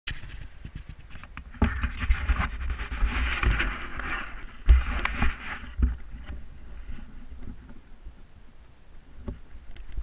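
Handling noise from a GoPro camera being moved and mounted: rubbing and rustling with bumps and clicks against the microphone, loudest in the first half and quieter after about six seconds in.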